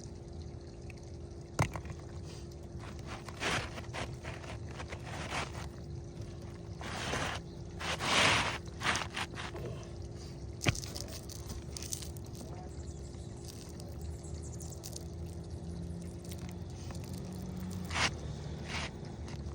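An asphalt shingle scraping and rustling as it is slid into place under the overlapping course, with the loudest swishes about halfway through and a few sharp taps.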